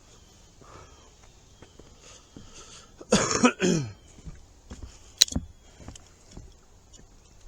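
A man coughs, about three seconds in, with a falling voiced sound; a sharp click follows about two seconds later, among faint scattered ticks.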